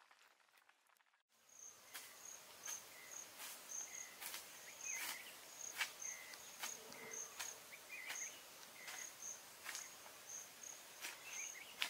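Insects chirping in a steady run of short, high pulses, with a few faint bird chirps and a sharp click now and then. It comes in abruptly about a second in.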